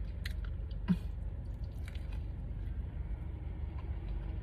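A person chewing a mouthful of soft sandwich (toast, fried catfish, cheese grits and scrambled eggs), with a few faint wet clicks and a brief hum of the voice about a second in.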